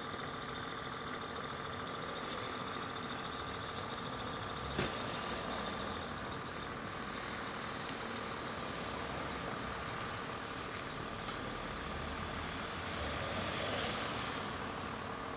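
Steady background hum of engine noise, with a single sharp click about five seconds in.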